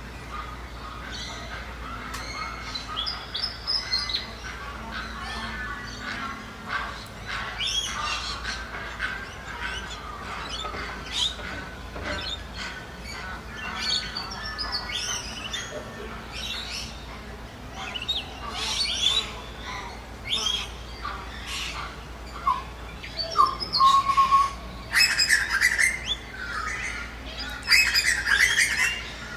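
Ducks and other birds calling in a busy mix of squawks and chirps, loudest near the end.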